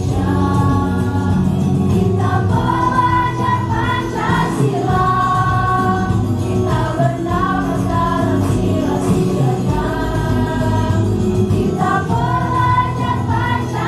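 A school choir singing together in held, sustained notes over a steady low accompaniment.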